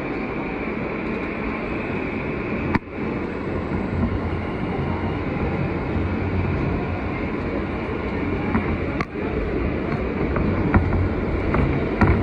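New York City subway train running on the track, a steady rumble that dips sharply for a moment about three seconds in and again about nine seconds in. A few clicks come near the end.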